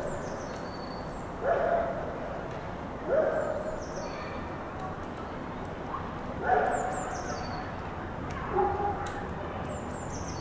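Park ambience: small birds giving thin, high, falling chirps, with a few short, louder calls from an animal or a person roughly every couple of seconds over a steady background hum.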